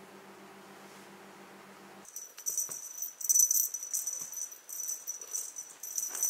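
A feather wand cat toy jingling and rattling in quick, uneven shakes as a cat bats at it, starting about two seconds in after a faint steady hum.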